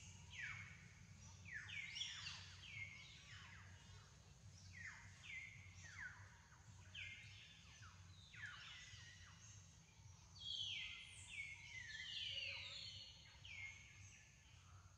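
A chorus of wild forest callers: many high calls, each sliding down in pitch and then holding steady, overlapping and repeating several times a second, over a faint low background rumble.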